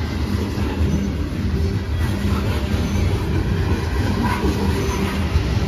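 Norfolk Southern coal hopper cars rolling past close by: a steady rumble of steel wheels on the rails.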